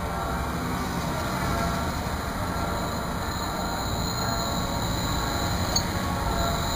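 Modern low-floor electric streetcar running along street track amid road traffic. A thin, high steady whine comes in about four seconds in, with a short click near the end.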